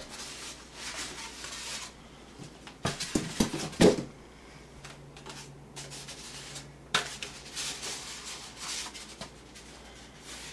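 A cardboard box with a computer case in it being handled and opened: rustling and sliding of cardboard and packing, with a quick run of knocks and thuds about three to four seconds in, then more scattered rustles and clicks.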